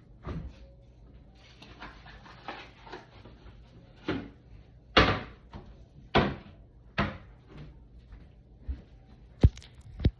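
Irregular knocks and clunks of things being handled in a kitchen, about eight in all over a faint steady hum, with a strong one about five seconds in and the sharpest near the end.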